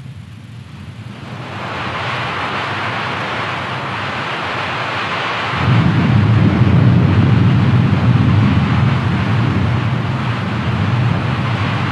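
Cartoon sound effect of heavy rain pouring down, swelling in over the first couple of seconds. Deep, steady thunder rumbles in about halfway through and runs on under the rain.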